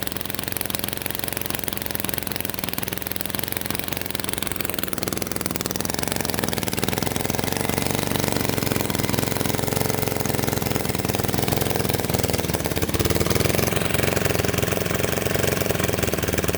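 Lawn mower's small engine running at a rough idle, after sitting unused for at least five years and now on a new carburetor with fresh oil and fuel. Its sound grows a little louder and fuller about six seconds in and again around thirteen seconds in.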